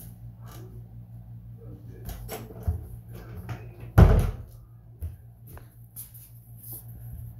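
Wooden interior door being opened and shut, with small latch and handle clicks and taps and one loud thump about four seconds in. A steady low hum runs underneath.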